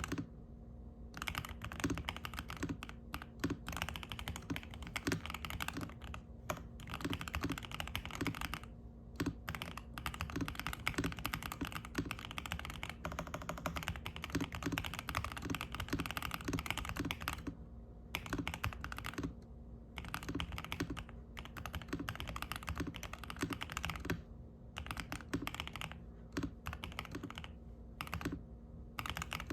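Typing on a Zuoya GMK67 mechanical keyboard: stock DK Roastery Iced Latte switches under ABS keycaps, on a polycarbonate plate in a foam-filled, tape-modded plastic case, set on a desk mat. Steady, unhurried key clacks with a few brief pauses.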